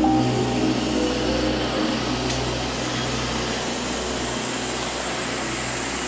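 Several iRobot Roomba robot vacuums running together: a steady hum and hiss, with the low hum fading out near the end.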